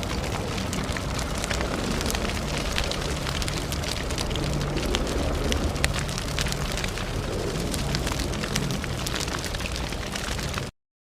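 Burning fire torch: a steady rushing flame with frequent small crackles and pops over a low rumble. It cuts off abruptly near the end.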